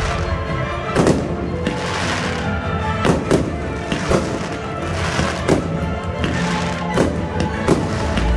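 Fireworks bursting overhead: about six sharp bangs at irregular intervals, with crackling and hissing between them, over music that plays throughout.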